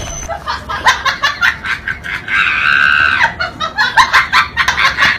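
High-pitched voice in quick, choppy laughing or squealing bursts, with one drawn-out high squeal a little past two seconds in.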